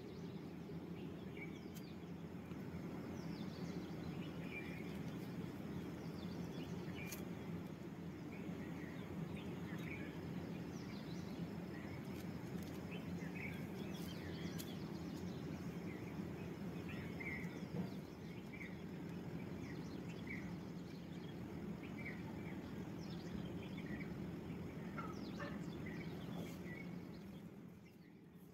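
Steady low background hum with faint bird chirps scattered throughout.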